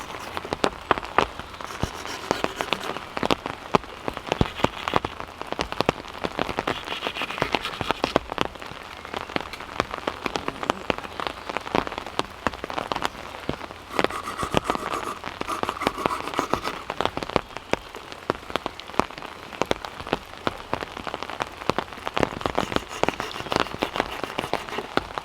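Heavy rain falling steadily, with many sharp individual drops hitting close by.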